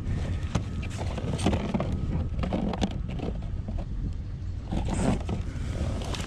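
Cardboard and plastic rubbing, scraping and knocking as gloved hands rummage through a trash bin, in irregular bursts of rustling over a steady low rumble.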